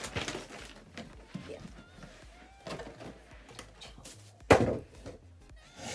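A few soft knocks and rustles of handling as the bags are moved aside, with one loud thump about four and a half seconds in.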